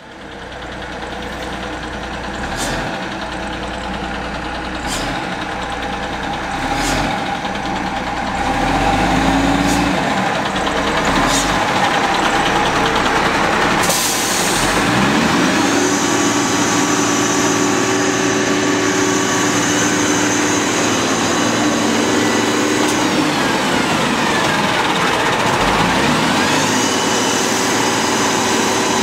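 Cummins L10 inline-six diesel of a WhiteGMC garbage truck running as the truck pulls up, with a few sharp clicks. A short air-brake hiss comes about halfway through. The engine then runs steadily with a high whine, its pitch dipping and coming back up near the end.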